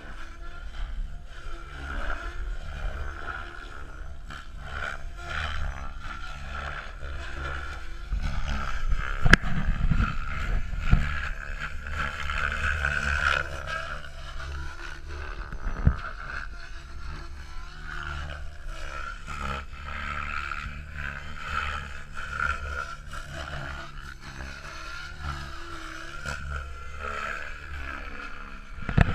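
KDS Agile 7.2 RC helicopter in flight, its rotor and drive whine rising and falling as it manoeuvres, over a low rumble of wind on the microphone. A few thumps come about nine to eleven seconds in and again near sixteen seconds.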